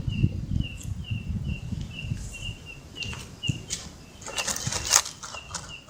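A night animal chirping in a steady, regular rhythm, about two high chirps a second. A low rumble comes in the first second, and a short burst of rustling crackle, the loudest sound, comes about four and a half seconds in.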